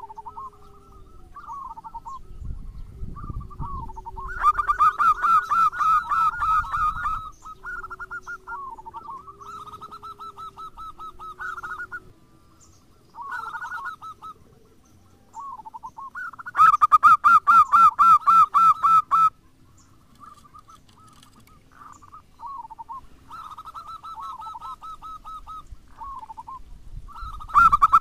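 Zebra dove (perkutut) cooing in phrases of rapid, staccato notes. The loudest, longest phrases come about 4 seconds in, about 17 seconds in and at the very end, with softer, shorter phrases between.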